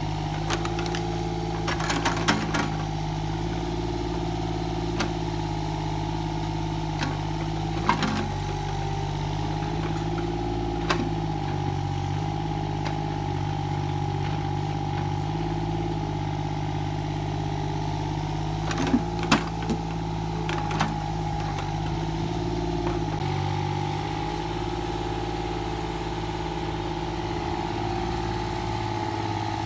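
An engine running steadily, its pitch shifting a little every few seconds, with scattered knocks and clatters, a cluster of them about two-thirds of the way through.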